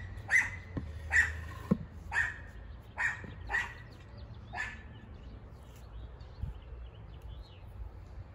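A dog barks about seven times at an uneven pace over the first five seconds, the barks growing fainter, with a couple of sharp knocks in between.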